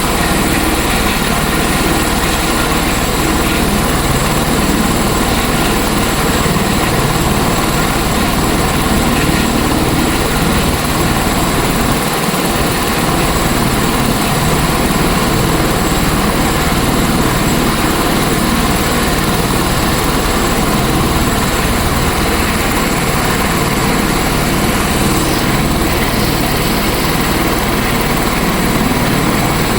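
Helicopter turbine and rotor running with a loud, steady drone that does not change.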